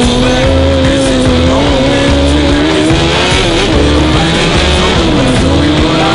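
Honda CBR600 inline-four engine of a Formula Student race car heard onboard, its pitch rising and falling as the throttle is lifted and reapplied, dipping about three times and climbing again near the end. A music track with a steady bass beat runs underneath.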